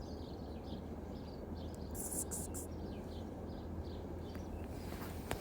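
Small birds chirping, short high calls repeating a few times a second, over a steady low rumble. About two seconds in there is a brief high hiss in three quick pulses.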